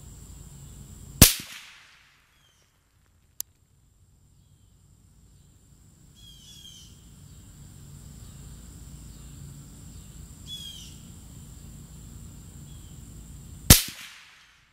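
Two rifle shots from a .223 AR-15 fitted with a home-built suppressor, freeze-plug baffles inside, heard from about 100 yards away and about twelve seconds apart, each a sharp crack with a short echoing tail. Between them comes one faint sharp click, with bird chirps and a steady high insect drone behind.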